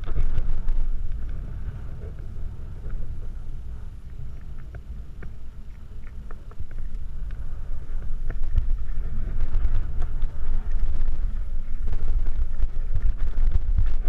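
Wind buffeting a helmet-mounted camera's microphone while a mountain bike rolls down a gravel trail, with a low rumble and scattered clicks and rattles from the tyres on loose stones. It grows louder from about halfway through as the bike picks up speed.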